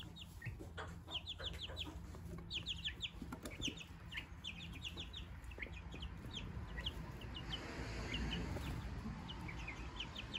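Chicks peeping: many short, high cheeps in quick scattered runs. About three-quarters of the way through, a rustling swell joins them for a second or two.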